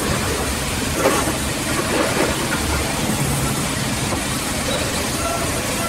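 Large vertical band saw running steadily. There are a couple of brief knocks about one and two seconds in.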